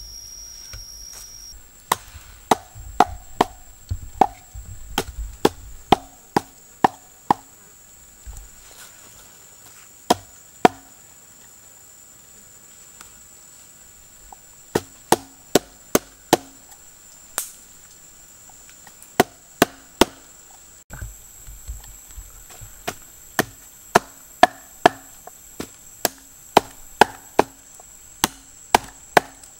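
Cleaver chopping raw chicken on a round wooden chopping block: sharp knocks in short runs of about two a second, broken by pauses.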